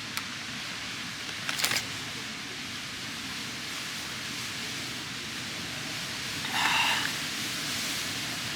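Steady wind rushing over the camera microphone on an exposed mountainside, with a sharp click about a second and a half in and a brief louder gust-like rush near the end.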